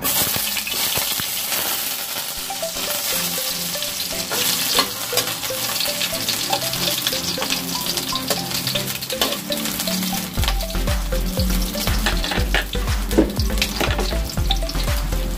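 Sliced onions sizzling in hot oil in a wok, sautéed as the base of the dish, while a metal spatula stirs them and scrapes and clicks against the pan.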